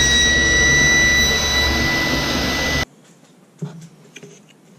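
Table saw running steadily with a motor whine, which stops suddenly about three seconds in. Afterwards there are only faint clicks and taps of small cut wood pieces being handled.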